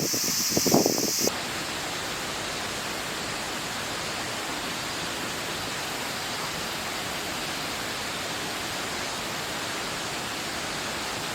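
A few short knocks in the first second, then a steady, even rushing noise with no rhythm or pitch, like running water.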